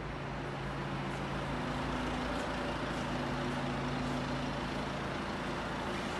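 A vehicle engine running steadily, with a low hum over a broad steady noise.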